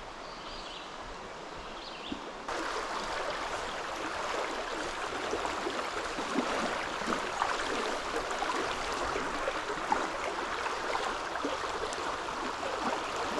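Trout stream water rushing steadily over a riffle. It becomes suddenly louder about two and a half seconds in.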